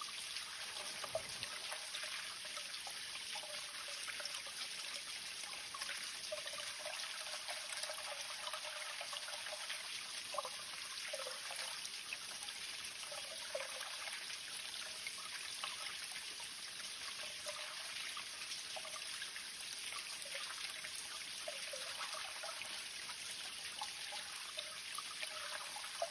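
Spring water running and trickling steadily, with small bubbling, gurgling notes.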